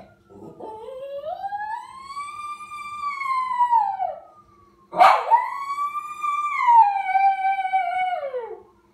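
Lhasa Apso howling in imitation of an ambulance siren: two long howls, each rising in pitch and then sliding down, the second starting abruptly about five seconds in.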